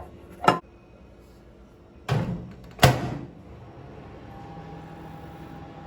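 Kitchen handling sounds: a light knock, then two louder clunks like a cupboard or appliance door shutting. About four seconds in, a steady electric hum with a faint tone sets in, like a kitchen appliance starting to run.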